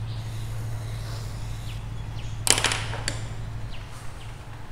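A steady low hum, fading a little past the middle, with one sharp click about halfway through and a couple of faint ticks after it.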